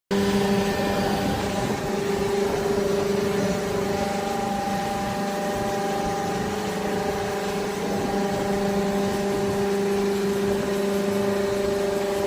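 Hydraulic scrap baling press running, its power pack giving a steady hum at an unchanging pitch over a low rumble.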